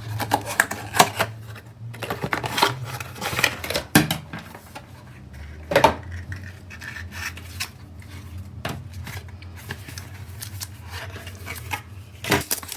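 A power bank being unboxed and handled: packaging and hard plastic rubbing, with scattered clicks and knocks, the sharpest about six seconds in.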